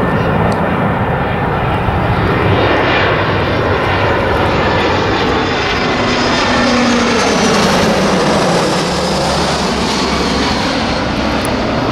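Airbus A320-family jet airliner on final approach with gear down, passing low overhead. Its twin turbofan engines give a loud, steady jet noise whose tone sweeps up and down as it passes. A short whine comes through about six seconds in, as it goes directly over.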